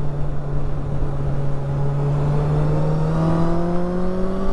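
Honda CB1000R's 998 cc inline-four engine pulling under acceleration, its pitch climbing steadily up the rev range, over wind noise.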